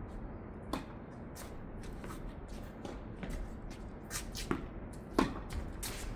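Tennis rally on a hard court: a string of sharp racket-on-ball hits and ball bounces, the loudest hit about five seconds in, with shoe scuffs between them.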